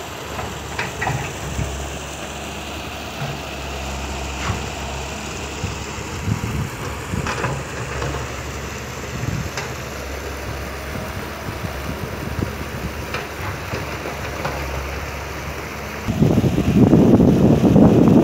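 Kobelco excavator's diesel engine idling steadily, with scattered light clicks and knocks. About two seconds before the end, a much louder rushing noise starts over it.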